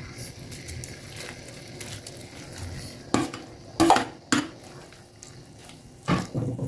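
Metal spatula knocking and scraping against a wok as dried tofu skin goes into a simmering coconut-milk curry. There are several sharp knocks from about three seconds in, over the curry's low, steady hiss.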